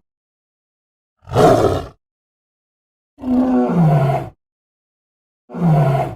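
Cartoon tiger roar sound effects: three short roars separated by silence, the first brief, the second a little over a second long, the third cut off at the end. The pitch falls within the longer roars.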